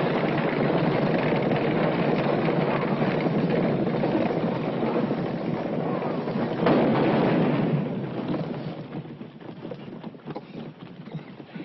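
Gunfight sound effects from an old western film soundtrack: a dense, steady din with gunshots, the loudest crack about seven seconds in, dying away after about eight seconds.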